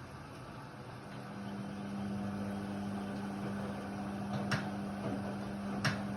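Indesit WIDL 106 washer-dryer running with a steady background whoosh. About a second in, a steady low hum sets in and holds. Two sharp clicks come near the end.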